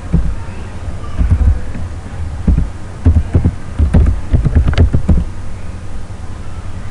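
Computer keyboard typing: irregular clusters of short key taps with a dull low thump to each, the densest run about four to five seconds in.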